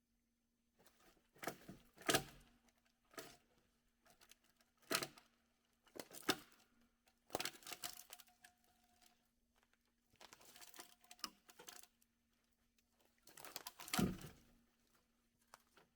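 Irregular rustling, crinkling and snapping, a series of short bursts with quiet gaps between, the sharpest about two seconds in, about five seconds in and near the end.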